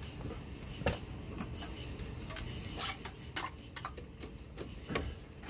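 A handful of sharp, separate clicks and light metal knocks, spaced about a second apart, as hands handle the steering nozzle of a Kodiak jet pump.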